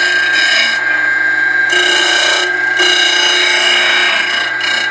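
A 12-inch disc grinder running with a steady whine while a steel knife blank is pressed against the abrasive disc, giving a harsh grinding hiss. The hiss drops out for about a second near the start as the steel comes off the disc, then resumes.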